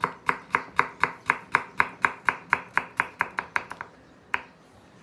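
Kitchen knife chopping carrot into small dice on a wooden cutting board: steady knocks about four a second, a quicker run of strokes a little after three seconds in, then one last knock and the chopping stops.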